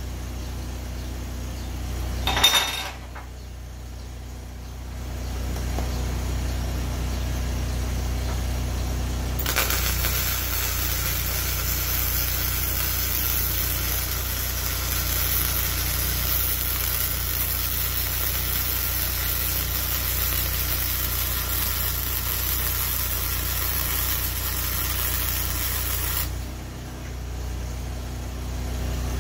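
Flux-core wire-feed arc from a Hobart Handler 125 welding steel plate: a steady crackling hiss that starts about nine seconds in, runs for about seventeen seconds and cuts off sharply near the end. A short clatter comes about two seconds in, and an engine-driven generator powering the welder hums steadily underneath.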